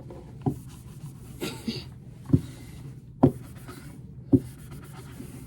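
A small travel iron being handled while she tries to turn it up: four sharp knocks and clicks, the last two the loudest, with a short rustle of cloth between them.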